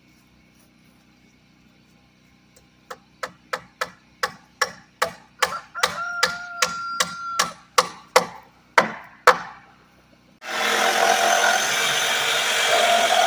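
A hammer driving a nail into wood: a run of sharp strikes, a few a second, stopping after about six seconds. A couple of seconds later a loud, steady machine noise starts abruptly.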